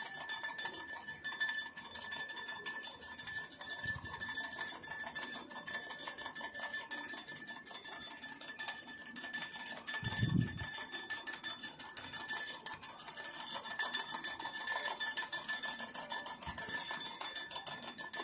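A metal fork beating instant coffee, sugar and iced water fast in a glass, the tines clinking rapidly and continuously against the glass as the mixture is whipped toward a foam. A single soft low thump comes about ten seconds in.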